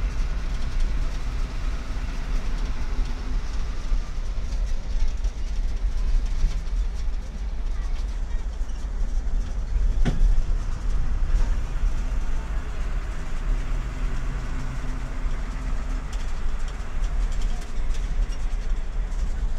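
Steady low engine and road rumble of a bus, heard from inside its cabin while driving, with one sharp knock about ten seconds in.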